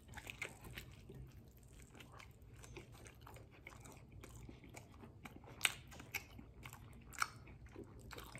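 A man biting into a burrito and chewing the mouthful with his mouth close to the microphone. Faint, wet mouth clicks and smacks go on throughout, with two sharper clicks a little past halfway.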